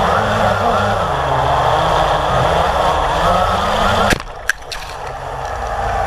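Blade 350 QX quadcopter's brushless motors and propellers whirring in flight, their pitch wavering, heard from its onboard camera. About four seconds in the drone strikes the ground with a sharp knock and two smaller clicks, and a quieter hum carries on.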